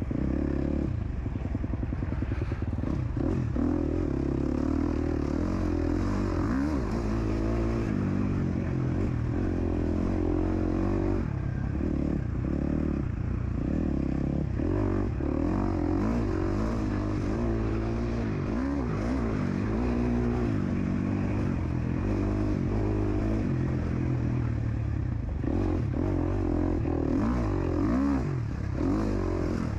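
KTM SX-F 250 four-stroke single-cylinder motocross engine being ridden hard, its revs rising and falling over and over as the rider accelerates and shifts along a dirt track, with rattling from the bike.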